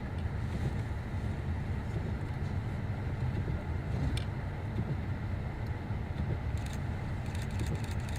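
Steady low rumble of a vehicle driving, heard from inside the cabin, with a run of quick sharp ticks near the end.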